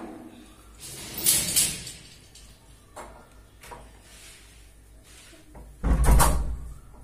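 A wooden door being shut and bolted: a scraping rattle about a second in, a few small clicks, then a heavy knock and rattle about six seconds in as the bolt at the top is slid home.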